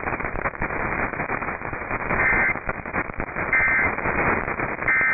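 Radio static hiss, with three short bursts of paired data tones about 1.3 seconds apart starting about two seconds in: the SAME digital end-of-message code that closes an emergency alert, here the severe thunderstorm warning just read.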